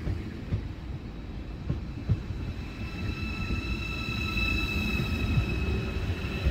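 ICE 4 electric high-speed train rolling slowly along the platform: a low rumble with irregular clunks from the wheels. About halfway through, a steady high whine from the train comes in.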